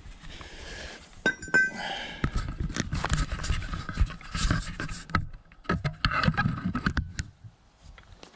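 Handling noise from tools and bolt-on parts wrapped in clear plastic as they are carried and sorted: a couple of clinks about a second in, then several seconds of irregular crinkling, rustling and knocking that die down near the end.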